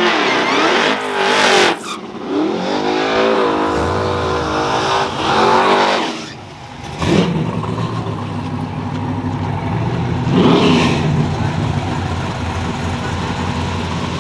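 Drag car engine revving in repeated rising and falling sweeps, then settling into a steady idle from about seven seconds in.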